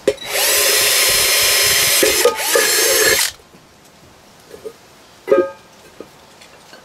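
Cordless drill spinning up and drilling through the steel lid of a tin can, a steady whine for about three seconds with a brief break partway, then cutting off. A short second burst of the drill follows about five seconds in.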